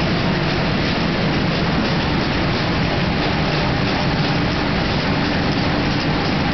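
SANJO NS-250 machine running steadily as it feeds silver foil film over its rollers: a loud, even mechanical noise that does not let up.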